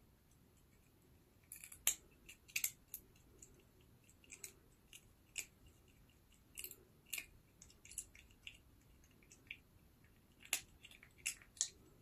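A kitten crunching sunflower seed shells in its teeth: sharp, irregular cracks and clicks starting about a second and a half in, loudest near the start and again near the end.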